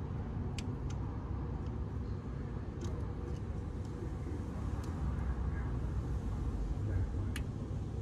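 Several small sharp clicks as metal multimeter test probes are placed on the terminals of an air conditioner's outdoor circuit board, over a steady low rumble.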